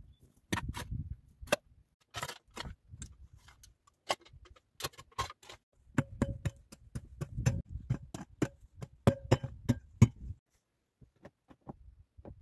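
Loose stones and gravel clicking and knocking under a person's hands and boots as he crawls and clambers through a rocky shelter entrance: irregular sharp clicks over dull scuffs, dying away about ten seconds in.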